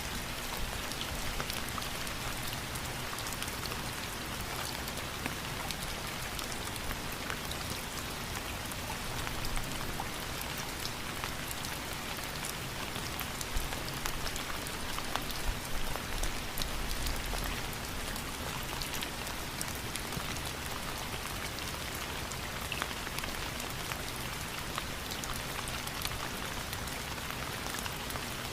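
Steady rain falling, an even hiss dotted with the ticks of individual drops striking a surface.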